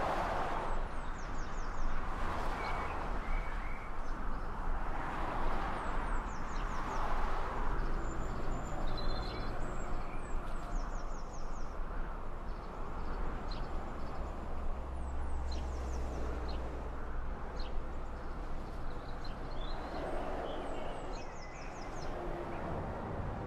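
Outdoor ambience: small birds chirping in short high calls over a steady low rumble and hiss of road traffic.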